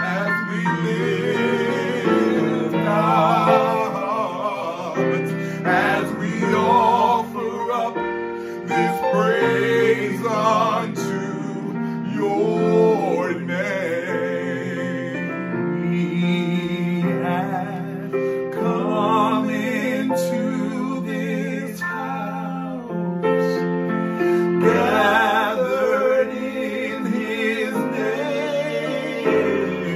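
Two men singing a gospel worship song with heavy vibrato, accompanied by chords on a digital keyboard.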